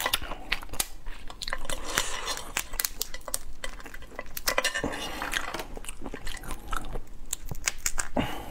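Langoustine shells cracked and peeled apart by hand: a rapid, irregular run of sharp crackles and snaps.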